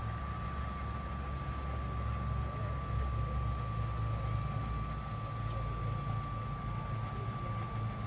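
Steady low rumble with a constant high whine running through it, like a machine running nearby; no goose calls stand out.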